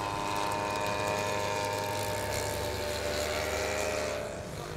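Engine and propeller of a large-scale radio-controlled Fokker Dr.I triplane on a low pass, running steadily with its pitch falling slowly as it goes by. The sound drops away shortly before the end.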